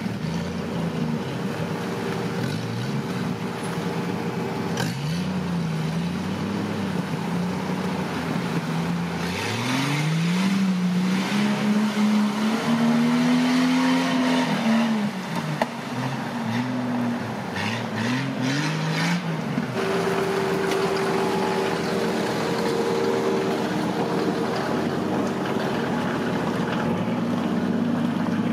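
Off-road 4x4 vehicle engine running, revved up and down several times in the middle, then settling back to a steady run.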